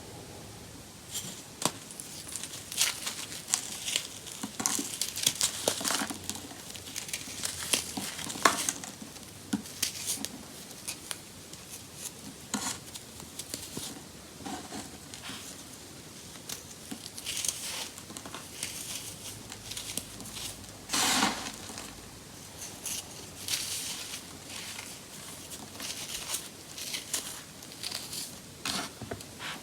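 Compressed baking soda being crushed and crumbled by hand, with irregular dry crunches and crackles; one longer, louder crunch comes about two-thirds of the way through.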